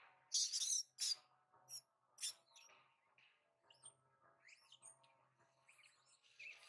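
Short, shrill, high-pitched animal calls: a quick run of four or five harsh squeals in the first two and a half seconds, then fainter, thinner chirps sliding up and down, and one more squeal near the end.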